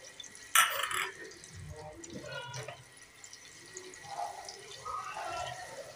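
Ginger-garlic paste and whole spices frying in hot oil, ghee and butter in an aluminium pot, giving a faint, uneven sizzle and crackle. A short loud burst comes about half a second in.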